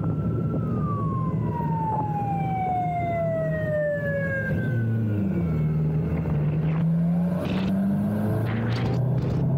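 A siren wail holds a high note, then falls slowly in pitch over about four seconds, above a motorcycle engine running steadily. About halfway through, the engine note shifts upward as the Kawasaki GTR 1400's inline-four is brought under way.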